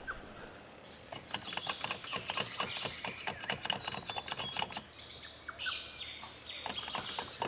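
Birds calling in woodland: a rapid run of short, high chirps among many sharp clicks.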